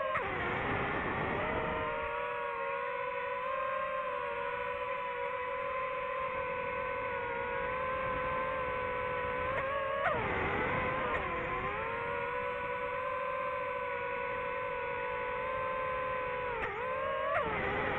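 DJI FPV drone's motors and propellers whining steadily in flight. The pitch dips and climbs back at the start, again about ten seconds in, and once more near the end.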